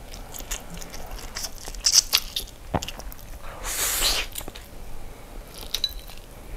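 Close-miked eating of instant stir-fried noodles: moist chewing and mouth clicks throughout, with one long slurp of noodles about four seconds in.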